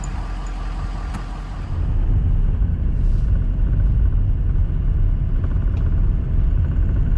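Vehicle driving, a steady low rumble of engine and road; about two seconds in the rumble grows louder and the higher sounds fall away.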